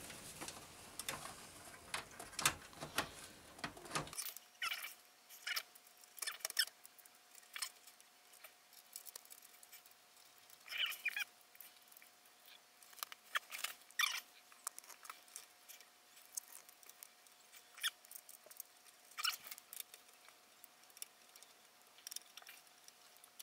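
Faint, scattered clicks and taps of a PC power supply and its modular cables being handled and fitted into a computer case, with a faint steady tone from about four seconds in.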